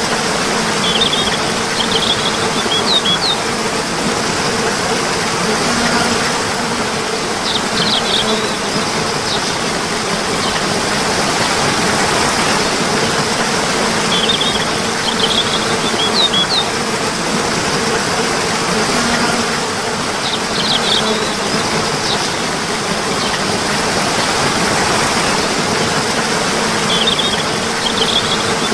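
Steady rushing of flowing water, with short bursts of high bird chirps coming back every six or seven seconds.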